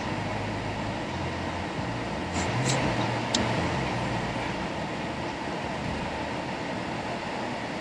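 Steady road and engine noise inside a moving car's cabin, with a low rumble and a few light clicks between about two and a half and three and a half seconds in.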